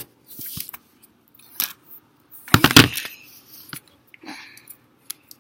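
Handling noise from the recording device being picked up and repositioned: scattered rubbing and scraping, with a cluster of sharp knocks about halfway through as it is set down.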